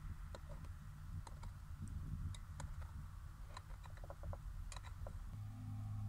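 Light, irregular clicks and taps of a small metal cooking pot being handled, several a second. A steady low hum sets in near the end.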